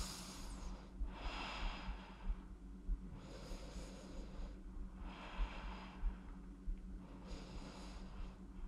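A woman breathing slowly and audibly while holding a stretch, about five soft breaths, one every one and a half to two seconds.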